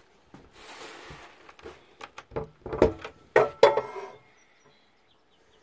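A door being handled in a small cabin: a short scraping rustle, then a run of sharp knocks and rattles, loudest about three seconds in.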